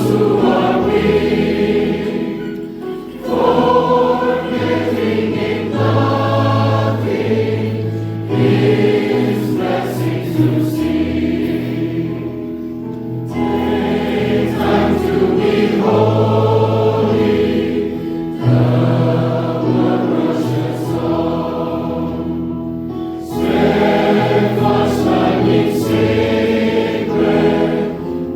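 A choir singing a hymn in long held phrases with a strong low bass line, pausing briefly between phrases about every five seconds.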